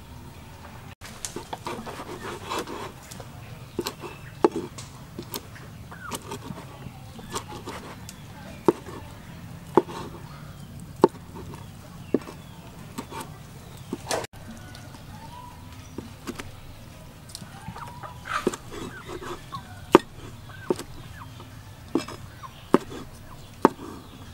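A cleaver chopping cooked chicken parts on a cutting board: sharp knocks at an uneven pace of about one a second. Chickens cluck in the background.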